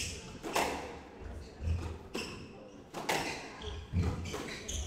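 Squash rally: the ball cracking off racquets and the court walls in sharp strikes about once a second.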